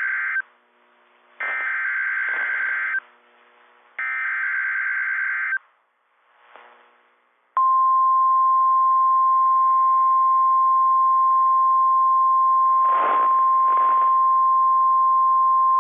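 Emergency Alert System SAME header data sent three times as warbling digital bursts, each about a second and a half long. About two seconds after the third burst, the steady single 1050 Hz NOAA Weather Radio warning alarm tone starts, about seven and a half seconds in. Together they mark the start of a new weather warning broadcast.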